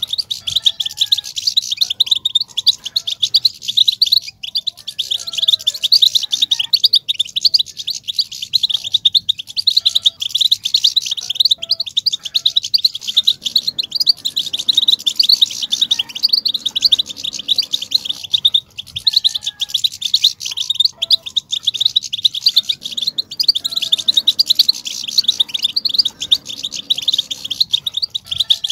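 European goldfinches singing: a fast, dense, unbroken twittering of short, rapid notes that runs with only brief pauses.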